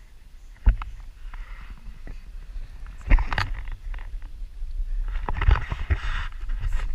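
Sounds aboard a small paddle boat on the water: a steady low rumble with sharp knocks about a second in, three seconds in and again near five and a half seconds, between bursts of hissy splashing.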